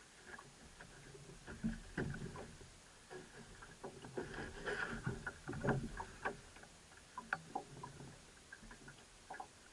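Irregular knocks, thumps and clatter as gear is handled at the stern of a small open boat, heaviest in the middle stretch, with no engine running.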